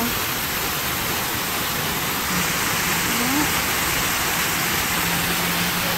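Man-made waterfall, its water pumped up from below, pouring down a rock face into a pool: a steady rushing hiss of falling water.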